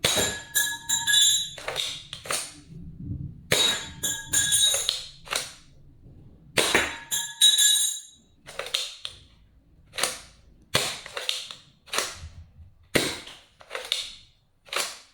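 M1 toy blaster being worked by hand, its plastic action pulled back and forth and fired over and over: a run of sharp plastic clacks and snaps. They come in bunches over the first eight seconds, then as single clacks about once a second.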